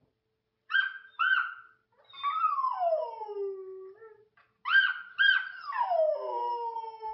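Golden retriever howling: two short sharp calls, then a long howl sliding down in pitch, and the whole pattern again, with the second howl still going at the end.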